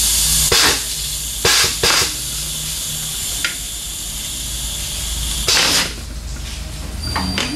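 Air hissing steadily from a tire being deflated, broken by four short, sharp blasts of compressed air; the hiss eases after the last blast, about five and a half seconds in.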